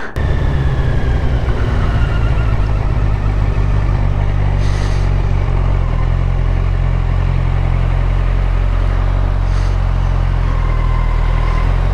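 Motorcycle engine running at a steady road speed while being ridden, mixed with wind noise into a loud, steady low rumble.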